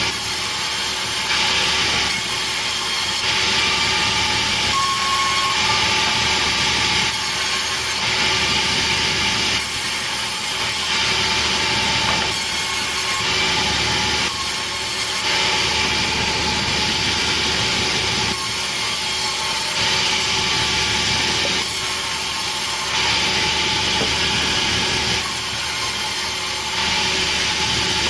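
Sawmill saw cutting through a petai log: a continuous rasping cutting noise over the steady tone of the running machine, swelling and easing every second or two.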